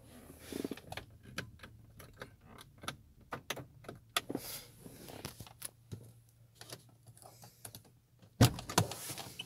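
Irregular small plastic clicks and taps as a hand works the interior controls and trim of a Toyota Innova, with two louder knocks about eight and a half seconds in.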